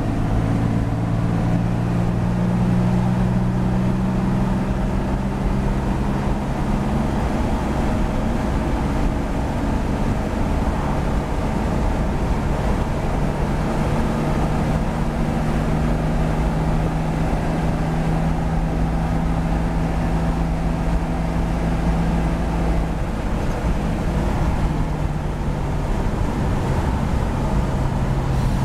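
A 1949 Chevy 3100 pickup's 244-cubic-inch Stovebolt straight-six, fitted with a race cam, dual carbs and dual exhaust, heard from inside the cab at a steady highway cruise. The engine drones evenly under road noise, and its note shifts slightly about three-quarters of the way through.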